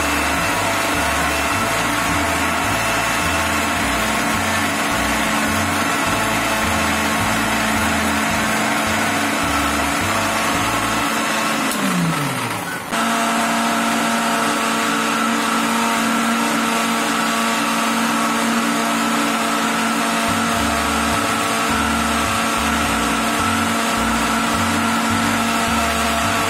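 Mixer-grinder motor with a stainless steel jar running at full speed, blending mint leaves with lemon juice, sugar and water, with a steady whine. About halfway in its pitch falls as it slows, and within a second it is back at full speed.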